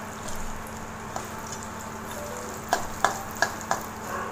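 Ghee sizzling as chopped dry fruits fry in it, in a well in roasted wheat flour in a metal kadhai. From about two-thirds of the way in, a metal spatula stirs them, clicking against the pan about three times a second.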